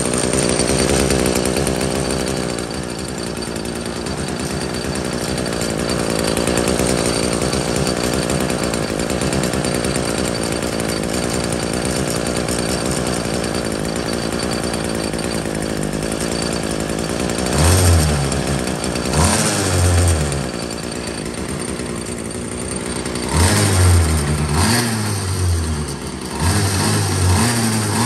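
Bolens string-trimmer engine running on its own, off the tool, at a steady high speed, then revved up and back down in several short bursts over the last third.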